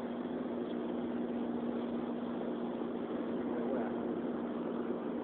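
A steady low mechanical hum, a constant tone over an even wash of noise, without a break or change.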